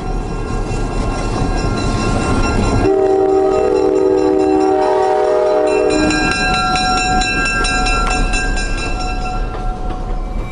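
EMD GP9 diesel locomotive passing close by with its air horn sounding, a chord of steady tones that shifts pitch twice, over the low rumble of the engine. Faint regular clicking of wheels on rail joins in the later part.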